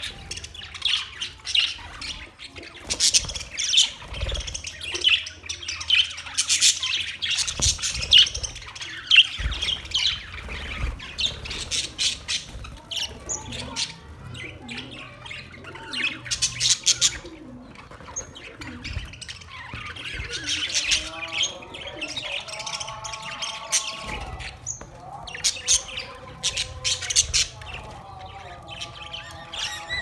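A flock of budgerigars chattering: a dense run of quick, high chirps and squawks, joined in the second half by lower, wavering warbling calls.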